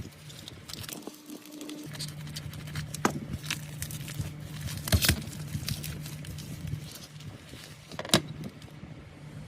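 Scattered small clicks and taps of tools and phone parts being handled, over a steady low hum. The loudest clicks come about five seconds in and about eight seconds in.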